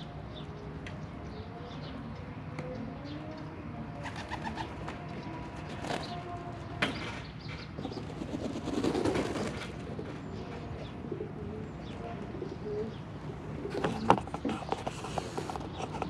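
Domestic loft pigeons cooing, low wavering calls, with a few sharp clicks and a short rustling flurry about halfway through and more sharp clicks near the end.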